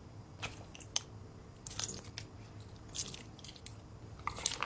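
A person chewing sour edible slime candy close to the microphone: irregular short mouth clicks and smacks.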